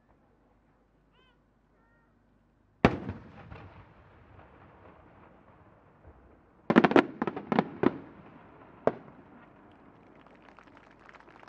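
A shakudama (10-inch) aerial firework shell bursting with one sharp bang that trails away, followed about four seconds later by a quick run of about six pops from its ring of small secondary bursts, and one last pop a second after.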